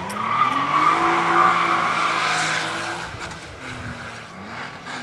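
Competition car's engine at high revs, accelerating hard out of a hairpin. The note climbs at the start and is loudest about a second in, dips about three seconds in, then climbs again near the end as the car pulls away.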